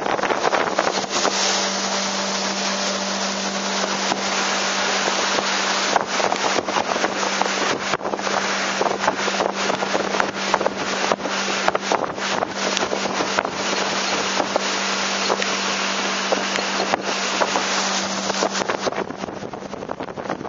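A small open boat's motor running steadily under way, a constant low hum that drops away near the end, with wind buffeting the microphone throughout.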